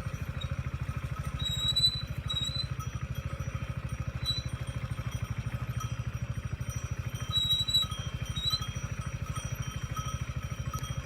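A vehicle engine running at low speed with a steady, evenly pulsing rumble, while a few brief high-pitched tones come and go.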